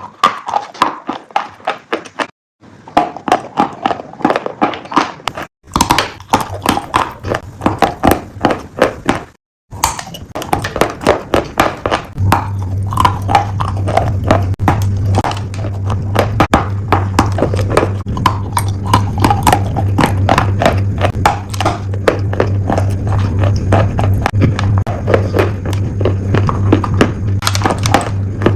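Piglet chewing crunchy food: fast, loud, repeated crunches, cut off abruptly three times by edit cuts. From about twelve seconds in, a steady low hum runs beneath the chewing.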